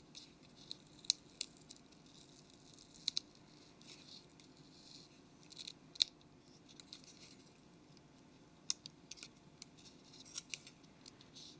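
Faint, irregular small clicks and scrapes of a plastic pry tool working against a phone's plastic frame and flex cable, peeling double-sided tape away.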